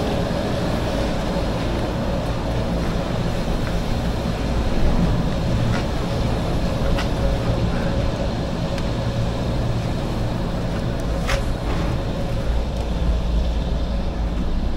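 Machinery of a Doppelmayr detachable chairlift station running: a steady low rumble with a held whine as the chair travels through the terminal. A few sharp clicks come through it, the clearest about two-thirds of the way in.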